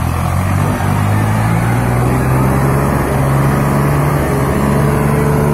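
Diesel engines of a Swaraj 855 and a Sonalika DI 55 tractor running hard under heavy load as they pull against each other in a tug-of-war, their note rising slowly and steadily.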